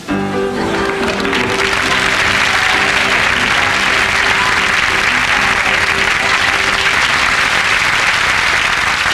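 Studio audience applauding, swelling up during the first second or two and then carrying on steadily. Under it, a closing chord of music rings out and fades away over several seconds.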